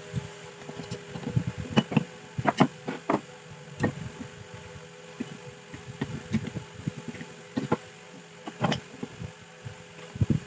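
Irregular clicks and knocks of small metal parts and hand tools being handled, over a steady background hum.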